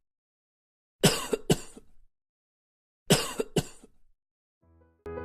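A person coughing: two bouts, about two seconds apart, each a pair of sharp coughs half a second apart. Piano music starts near the end.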